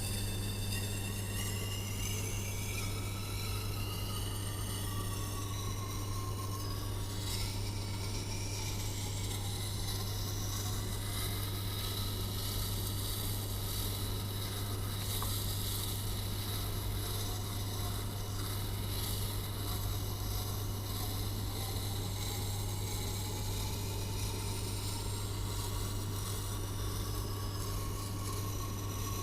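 Tormek T8 sharpening machine running with a steady motor hum, while a kitchen knife blade is worked along the turning wheel, giving a scraping hiss whose pitch slowly rises and falls.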